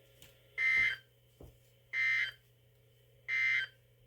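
Emergency Alert System SAME data signal from NOAA Weather Radio: three short, identical digital bursts, each about a third of a second long and a little over a second apart. This is the end-of-message code that closes a broadcast warning.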